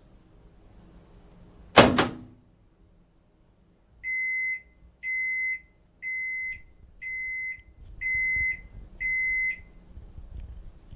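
Washing machine's end-of-cycle signal: a single sharp clunk, then six even electronic beeps of one steady pitch, each about half a second long and about a second apart, marking the cycle finished.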